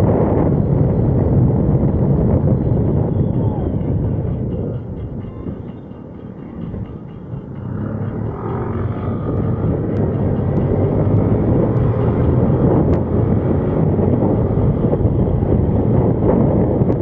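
Steady rush of wind and road noise from a vehicle travelling along a road. The noise eases for a couple of seconds about five seconds in, then builds back up.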